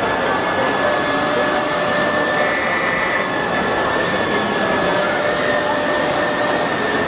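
Small electric motor of a battery-powered toy vehicle whirring steadily, a high whine over a hiss, with a brief higher whine joining about two and a half seconds in.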